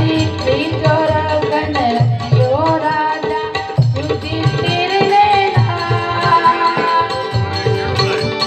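Live Gujarati santvani devotional music: a woman singing a gliding melody to harmonium and Indian banjo (bulbul tarang), with a steady beat on a hand drum.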